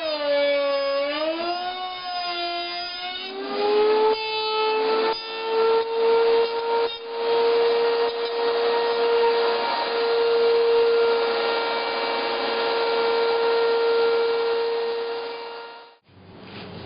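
Router on a router table cutting into a small wooden block: the motor's whine sags in pitch under load during the first few seconds, then comes back up and runs steadily at a high pitch. A few knocks sound as the block is moved along the fence, and the sound cuts off abruptly near the end.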